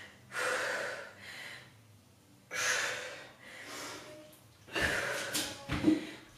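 A woman breathing hard while exercising, about five loud breaths a second or so apart. Near the end come a couple of dull thuds as the dumbbells are set down on the floor mat.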